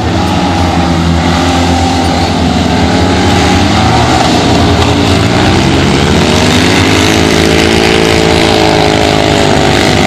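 Citroën 2CV autocross cars' small air-cooled flat-twin engines running hard at high revs, several at once. Their pitch rises and falls as the cars accelerate, lift off and go past, with one note swelling and bending through an arch about six to nine seconds in.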